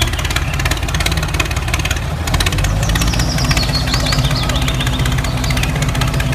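An engine idling with a rapid, even knocking beat. A short run of high chirps comes about three seconds in.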